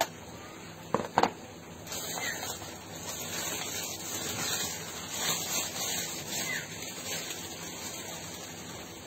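Handling noise: two sharp taps about a second in, then several seconds of uneven crackly rustling as cloth, plastic and paper money are handled.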